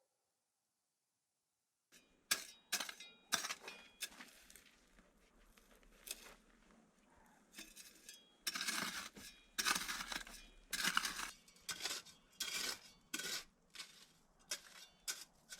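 A long run of sharp, irregular clinks and knocks of hard objects striking one another, starting about two seconds in.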